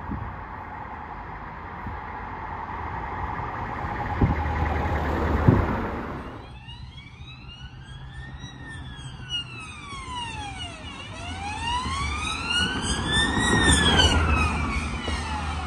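Road traffic noise building up. About six seconds in, a police van's siren starts a slow wail, sweeping up and down in long cycles, and grows loudest as the van drives past near the end.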